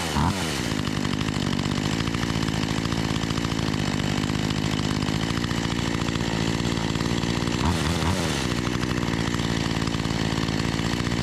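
Makita EA3200S two-stroke chainsaw idling steadily after a quick rev falls away at the start, with one short throttle blip about eight seconds in. Its carburetor's low-speed mixture is being dialed in after the saw sat in storage, the owner finding it now running a touch lean.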